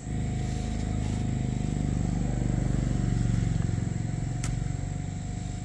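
A small engine running with a low hum, growing louder to a peak past the middle and then easing off, with a single sharp click about four and a half seconds in.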